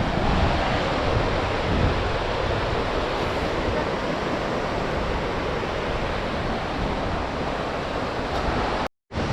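Steady rush of a mountain river's flowing water, an even noise from low to high with no pauses. The sound drops out for a split second near the end.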